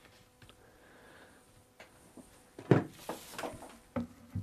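Handling noises as fabric is smoothed at the corner of a chair seat and a pneumatic stapler is brought up against the wooden seat rail: quiet at first, then one sharp knock a little over halfway in and a few lighter knocks near the end.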